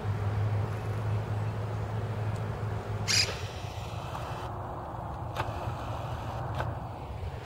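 Monk parakeet giving a short, harsh squawk about three seconds in, followed by two fainter short calls, over a steady low rumble.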